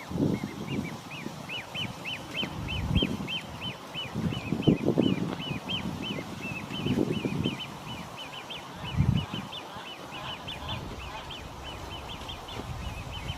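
Juvenile great crested grebes giving a long run of short, high, piping begging calls, about three a second, as they beg their parents for fish. Several loud low rumbles break in at intervals.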